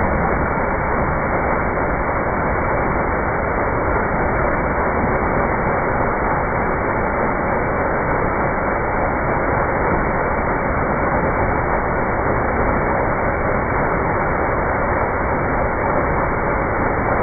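Steady, even rushing noise of a rotating cracker seasoning drum running, with crackers tumbling inside it and pouring out.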